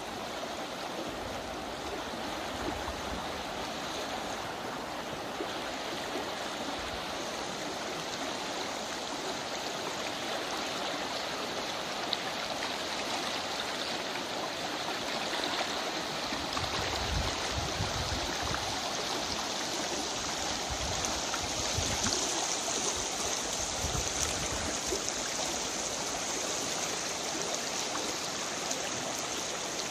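Freestone river running steadily over a riffle, a continuous rushing of water. A few low rumbles come in past the middle.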